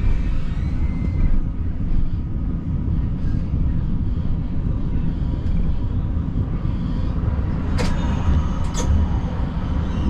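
Siemens Combino tram running along street track: a steady low rumble of motors and steel wheels on rail. Near the end come two sharp metallic clicks about a second apart, each with a short high ring.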